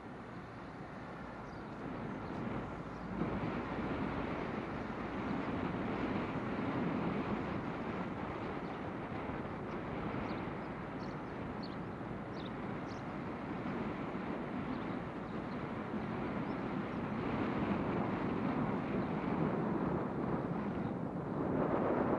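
Street traffic: vehicles passing by, the noise swelling about three seconds in and again near the end. A few faint short high chirps sound in the middle.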